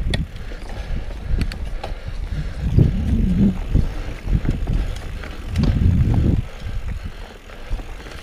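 Mountain bike riding over a rough dirt trail: the tyres and frame rumble over bumps, with scattered knocks and rattles. It is loudest about three seconds and about six seconds in.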